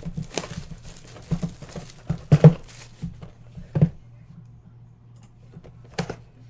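A Phoenix football trading-card box being handled and opened: plastic wrap crinkling and scattered knocks. The loudest knock comes about two and a half seconds in, with another near four seconds, then a lull. A steady low hum runs underneath.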